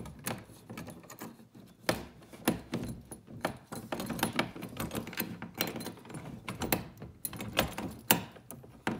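Irregular clicks and knocks, with a few louder thunks, as a kayak seat frame and its cam locks are worked by hand into the hull's molded plastic seat rails. It is a fiddly fit that takes some fussing.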